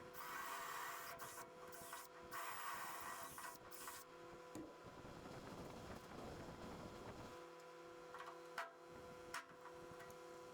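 Faint scraping or rubbing in short spells during the first few seconds, then two light clicks near the end, over a steady electrical hum.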